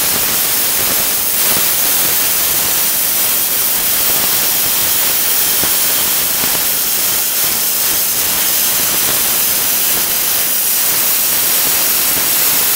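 Tenya Cut60C plasma cutter, with its built-in air compressor, cutting a long line through metal: a loud, steady hiss of the air-plasma arc.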